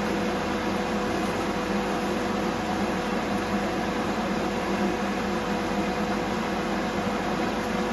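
A steady mechanical hum with an even hiss, like a kitchen exhaust fan running, unchanging throughout.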